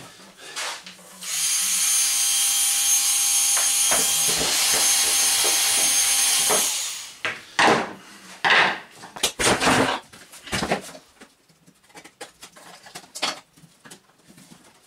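Cordless drill-driver running steadily with a motor whine for about five seconds, with a brief dip about four seconds in, as it backs out a screw from the vacuum cleaner's plastic housing. A few knocks and clatters of plastic parts being handled follow.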